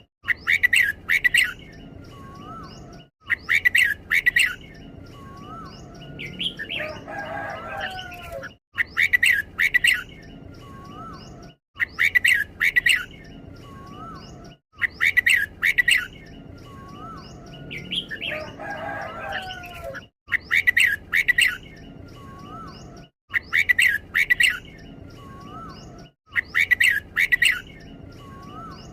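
Red-whiskered bulbul singing short, bright, warbled phrases about every three seconds, each given twice in quick succession. This is the doubled 'double' song that Thai bulbul keepers prize. Soft short whistled notes come between the phrases.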